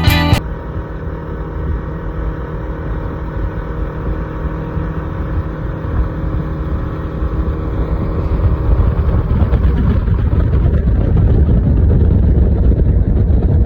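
An engine running steadily with a low rumble that grows louder about halfway through.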